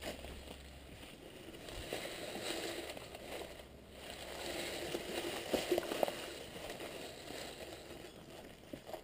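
Footsteps and a mountain bike being handled on dry leaf litter, a rustling and crunching that swells and fades, with a few sharp knocks from the bike about five to six seconds in.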